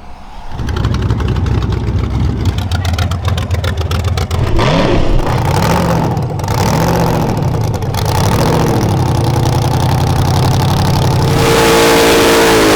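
High-powered drag car's engine comes in with a deep low rumble about half a second in and idles roughly. It is blipped about four times, each rev rising and falling in pitch. Near the end it goes to a loud, sustained full-throttle run.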